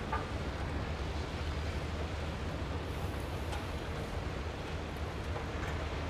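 Fishing boat's diesel engine running at idle, a steady low rumble, with a few faint knocks.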